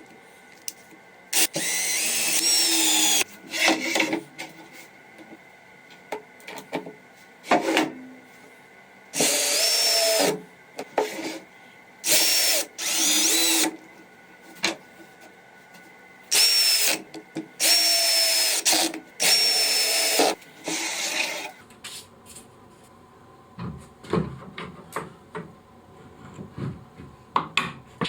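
Power drill working in plywood in short runs of a second or two, about ten times, each with a steady motor whine. Near the end, lighter scattered clicks and knocks.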